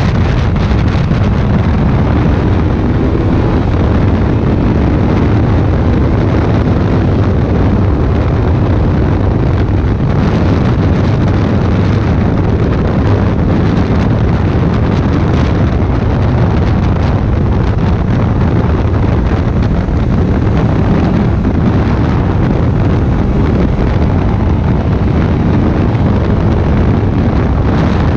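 Motorcycle riding at highway speed: a steady engine drone under loud wind noise on the microphone.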